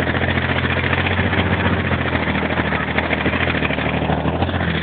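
Military vehicle engine running steadily while the vehicle drives along, with a constant dense rushing and rattling noise over it.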